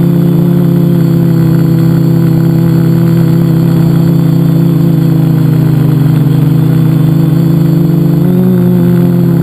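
Multicopter's brushless electric motors and propellers, heard from a camera mounted on its frame: a loud, steady buzzing hum, its pitch shifting slightly about eight seconds in as the throttle changes.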